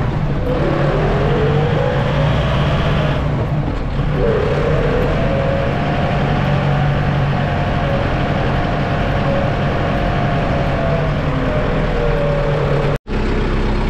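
Kubota M6060 tractor's four-cylinder diesel engine running steadily as the tractor drives. A whining tone above the engine slides down and back up about half a second in, drops out and returns near four seconds in as the tractor shifts, then holds steady. The sound cuts out for an instant near the end.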